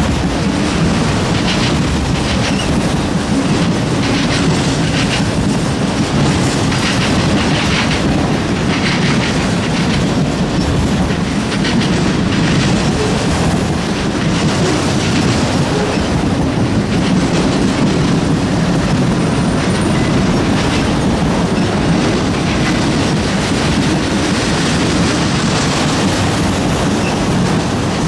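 Freight train cars rolling past at a steady level, their wheels clicking over the rail joints.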